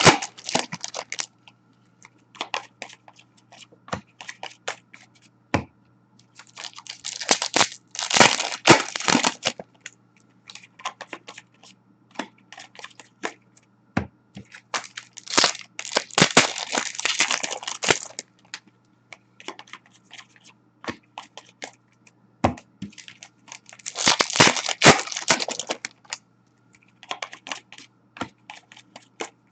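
Foil wrappers of Upper Deck hockey card packs being torn open and crinkled. This comes in several crackly bursts of one to three seconds, with small clicks and rustles of cards being handled in between.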